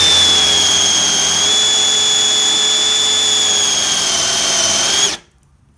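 Power drill running steadily at full speed with a Kreg hinge-boring bit, cutting a concealed-hinge cup hole in a cabinet door through a drill jig: a steady high whine over cutting noise that stops abruptly about five seconds in.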